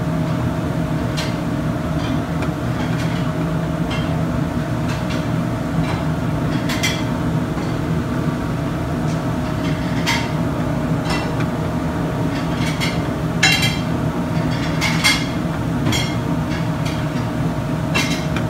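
A plastic spatula tapping and scraping in a small nonstick omelette pan as the eggs set, in scattered short clicks, over a loud, steady rumble of a commercial kitchen with its gas range lit.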